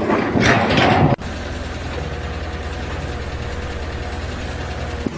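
A louder, noisy stretch cuts off abruptly about a second in. After it an engine idles steadily with an even low pulse.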